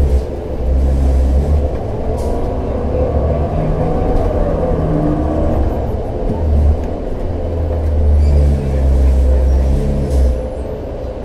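A 2011 New Flyer C40LF city bus under way, its Cummins Westport ISL-G natural-gas engine and Allison transmission making a heavy low rumble that swells and eases. A whine rises and then falls in pitch a few seconds in.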